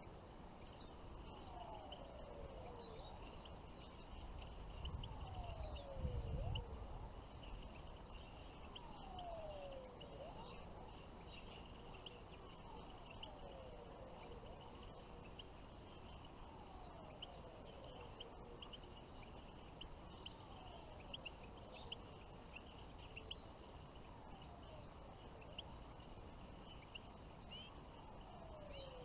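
Small songbirds chirping and twittering at a low level, with a low whistle that glides downward, repeated about every two and a half seconds. A brief low rumble comes in around a quarter of the way in.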